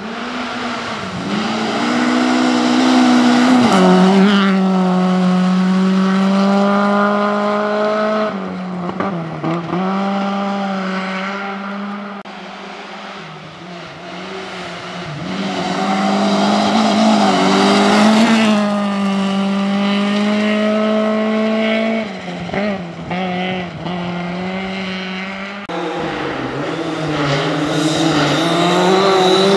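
Rally cars driven hard on a special stage, engines held at high revs with the pitch rising, holding and dropping through gear changes and lifts. Several passes, each fading before the next car or cut comes in loud again.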